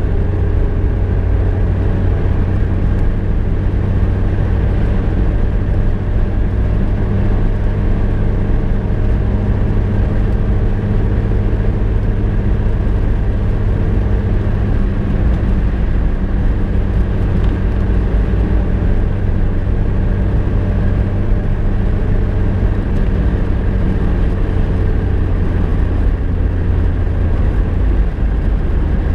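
VW Golf Mk2 driving at a steady pace, heard from inside the cabin: a constant low engine drone mixed with road and tyre rumble.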